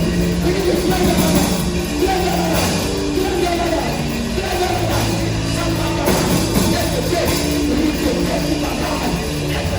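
Loud live gospel worship music: a band playing sustained chords, with voices singing wavering melodic lines over it.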